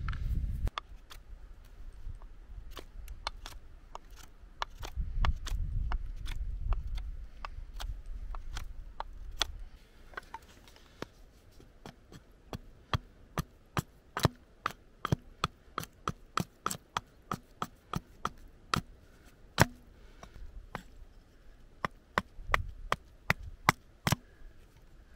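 Small hatchet knocking into a stick of green European hornbeam on a wooden block, shaping a spatula blank: sharp wooden knocks, a few at first, then a quick run of about two a second through the second half. A low rumble sits under the first few seconds.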